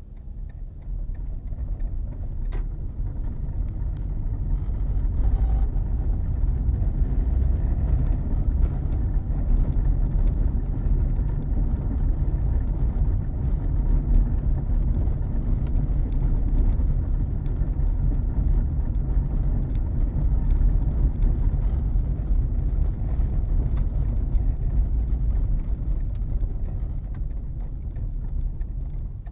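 Car tyres rumbling over a cobblestone road, heard from inside the car along with the engine. The rumble grows louder over the first few seconds as the car picks up speed and eases off near the end as it slows.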